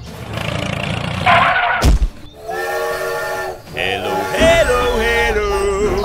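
Dubbed sound effects for a toy steam train: a thump about two seconds in, then a train whistle sounding for about a second, followed by wavering, sliding-pitch voice-like sounds over a low engine rumble.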